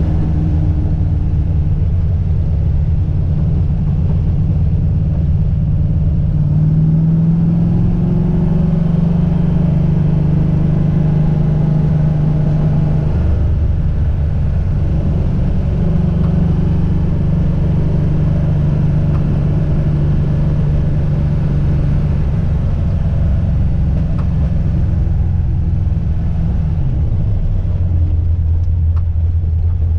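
Car engine and road noise during a slow drive, the engine note rising and falling as the car speeds up and the gears change.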